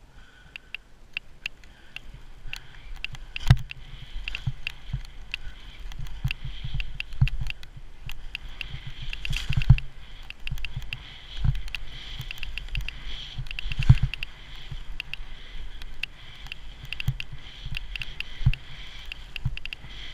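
Skis sliding and scraping over tracked, cut-up snow during a downhill run, with wind buffeting the camera microphone. It builds from near quiet at the start, with many small clicks and a few sharp knocks from the skis and the camera mount.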